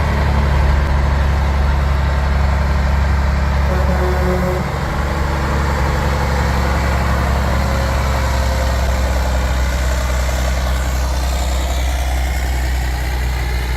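Heavy diesel truck engine running steadily close by, a deep low rumble that eases slightly about four and a half seconds in.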